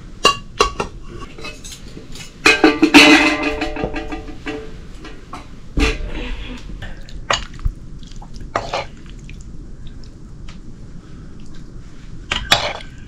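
Stainless steel plates and utensils clinking and knocking, with a loud ringing clatter of metal dishes about two and a half seconds in that lasts a couple of seconds. Scattered single knocks follow, and near the end a spoon knocks and scrapes in an iron karahi.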